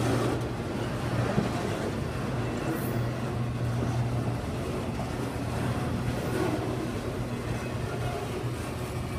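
Freight train of enclosed autorack cars rolling past at close range: steady wheel-on-rail noise with a low hum, and one sharp knock about a second and a half in.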